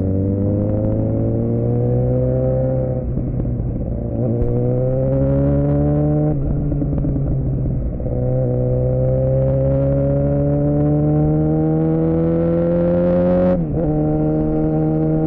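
2007 Suzuki GSX-R600's inline-four engine through a Yoshimura R11 exhaust, pulling up through the gears while riding. The revs climb and dip briefly at each upshift, about three seconds apart. Then comes one longer rising pull that drops sharply near the end and settles to a steady cruise.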